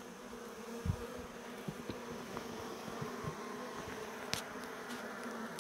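Honeybees buzzing over the open frames of a hive, a steady hum, with a few faint clicks.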